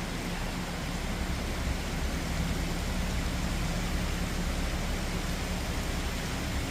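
Steady rain falling, an even hiss, with a low engine rumble and hum running underneath.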